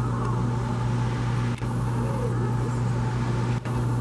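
Steady low engine hum of an idling vehicle, with two brief dropouts.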